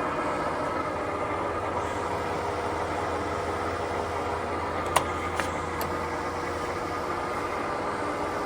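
Cadillac gap bed engine lathe running under power: steady gearing and motor noise with a steady tone, and two sharp clicks about five seconds in.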